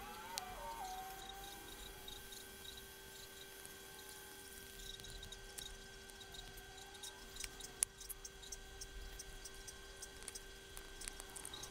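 Faint handling of a plastic syringe and mold as liquid two-part silicone is pushed in: a brief squeak from the plunger near the start, then scattered light plastic clicks and ticks, with one sharper click about eight seconds in, over a steady low hum.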